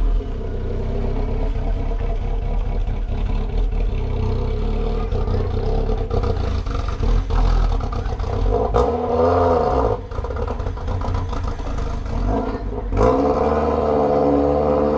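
MG TF's four-cylinder engine and exhaust as the car drives past close by and pulls away, the rumble carrying on as it moves off.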